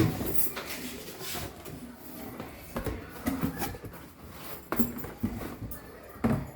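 Hands handling a mixer grinder and its parts: irregular knocks, clicks and rustles, with the loudest knock right at the start.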